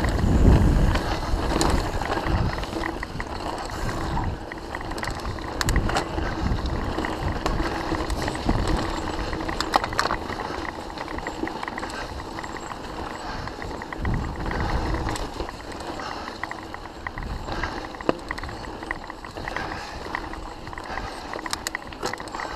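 Mountain bike riding fast down dry dirt singletrack: steady tyre noise on the trail with frequent sharp clicks and rattles from the bike over roots and stones, and bouts of low wind rumble on the microphone.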